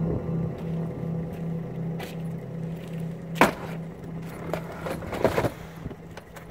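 A suitcase being loaded into a car's boot, knocking against the boot about halfway through and again a couple of seconds later as it is pushed into place, over a steady low hum that pulses about twice a second.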